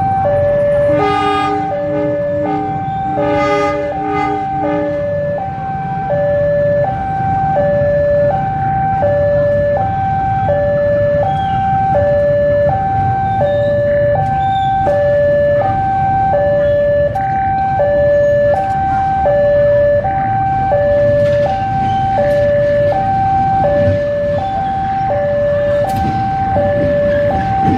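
A railway level-crossing alarm sounds a steady two-tone ding-dong, about one high–low cycle a second, over the low rumble of a slow-moving diesel locomotive. The locomotive sounds its horn twice, about one and three seconds in. A few sharp clicks of wheels over rail joints or points come near the end.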